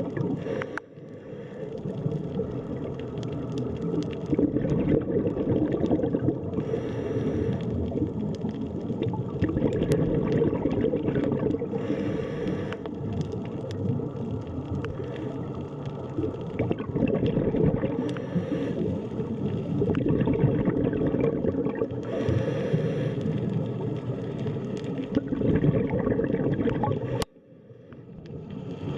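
Underwater ambience: a steady low wash of water with gurgling, and a brighter bubbling hiss coming back every five seconds or so. The sound dips briefly about a second in and again near the end.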